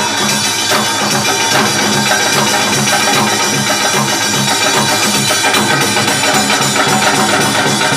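Music driven by fast, steady drumming at a constant loud level.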